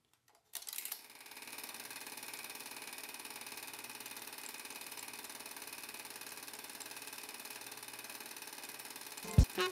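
Vintage 8mm film projector started up: a few clicks, then its motor and film-advance mechanism run with a steady, fast-fluttering whir. Near the end a loud low thump as music begins.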